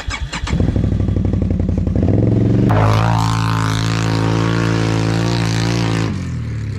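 Can-Am ATV's V-twin engine idling with a pulsing beat, then revved up a little under three seconds in, held at a steady higher pitch for about three seconds, and let back down near the end.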